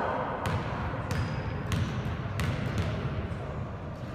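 A basketball bounced on the gym floor several times, each bounce a sharp separate smack, over the low murmur of the gym.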